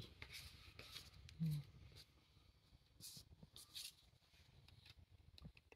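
Quiet handling of trading cards: faint soft rustles and light taps as cards are slid and flipped, with a brief murmur of a voice about a second and a half in.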